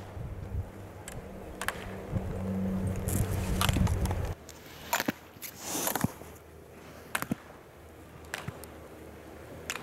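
Slalom gate poles being struck by a skier passing through them, sharp clacks about once a second, with a brief scrape of skis on snow. A steady low hum drops out suddenly about four seconds in.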